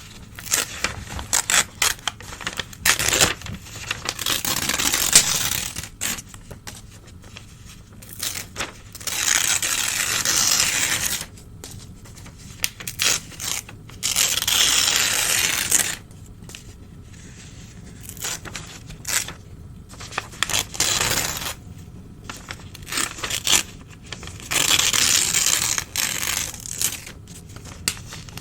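Old newspaper being torn by hand in about five long rips of one to two seconds each, with crackling and crumpling of the paper between the rips.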